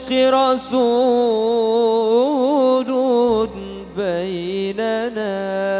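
A solo male voice singing an Arabic sholawat melody into a microphone, in long held phrases that waver and turn in pitch, with a short break about three and a half seconds in.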